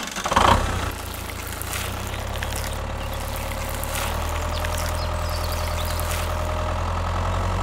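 Tractor engine running steadily with a low, even hum, and a brief louder burst about half a second in.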